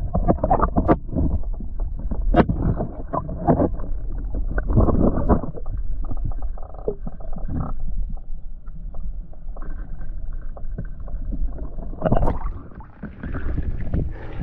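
Lake water sloshing and gurgling against a kayak hull, muffled as if heard underwater, with irregular splashes. The heaviest come near the start as a released largemouth bass drops back into the water.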